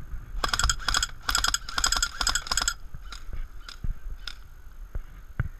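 Airsoft guns firing: several quick bursts of rapid shots, then single shots about every half second.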